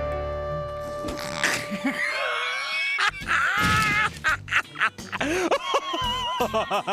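Cartoon soundtrack: a musical chord gives way, about a second in, to warbling, wobbling comic vocal noises and sound effects over music.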